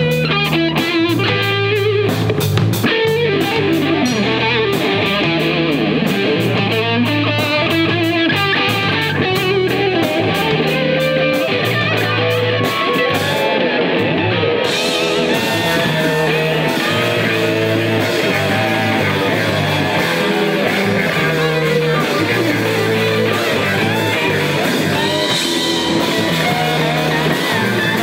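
Live rock band playing: electric guitar lines with sliding notes over a drum kit. The drummer keeps a rapid, even hi-hat beat for the first half, then the cymbals ring continuously from about halfway.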